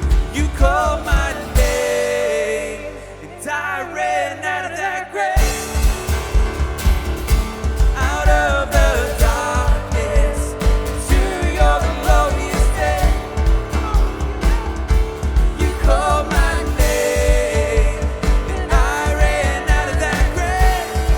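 Live worship band performing a song: voices singing over drums, electric guitar, synth and piano. The drums drop out for a few seconds near the start, leaving singing over held synth tones, then the full band comes back in about five seconds in.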